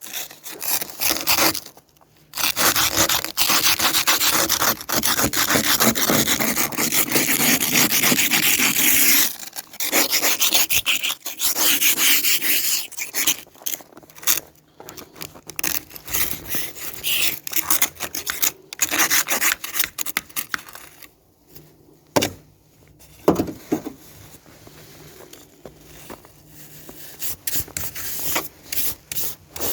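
Ice scraper scraping frozen snow and ice off a car's glass: a long unbroken run of scraping strokes, then shorter separate strokes with pauses between them.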